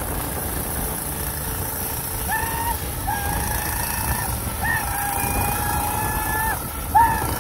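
Wind and road noise from a car pacing a Coleman CT100U mini bike on the road, with the mini bike's small engine running. Over it, a high held tone sounds four times from a couple of seconds in, the longest lasting nearly two seconds.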